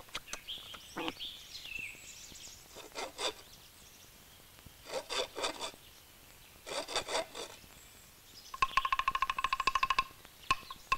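Cartoon sound effects: a hand saw cutting wood in three short bouts of quick strokes. About two-thirds of the way in comes a fast, loud run of ringing pitched taps, like a xylophone.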